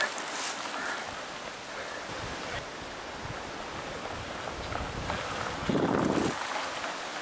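Mountain bikes riding past close by on a dirt forest trail: one goes by right at the start and a louder pass comes about six seconds in, over a steady rush of wind noise on the microphone.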